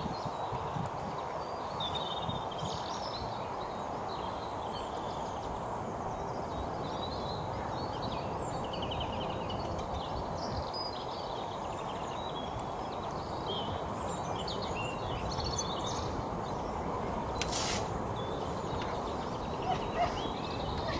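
Steady outdoor background noise with small birds chirping now and then, and a brief click late on.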